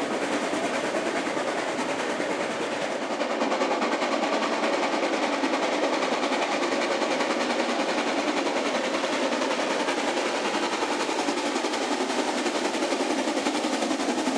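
Narrow-gauge steam locomotive 52 MH, a four-coupled engine built in 1914, working hard uphill on superheated steam, its exhaust beating rapidly and steadily.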